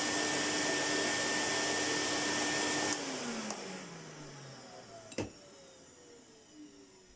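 1973 Goblin 702 cylinder vacuum cleaner's bypass motor running steadily, then switched off about three seconds in and winding down, its pitch falling slowly. A sharp click comes about two seconds after the switch-off.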